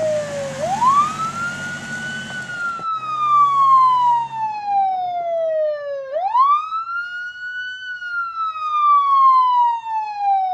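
Police siren wailing: each cycle the pitch sweeps up quickly, then falls slowly over about four seconds, with two full rises in this stretch. The siren is a stock sound effect.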